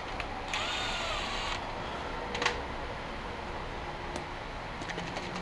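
Cordless power ratchet running for about a second, its motor pitch rising then falling as it spins out a bolt from the engine plate. Then a single sharp metallic click, and a few light clinks of parts being handled.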